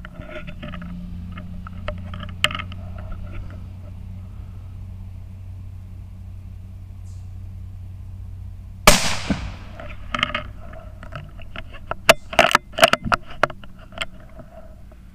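A single .17 HM2 rifle shot about nine seconds in: a sharp crack with a short fading tail. After it comes a run of sharp clicks and knocks as the rifle is moved, over a low steady hum.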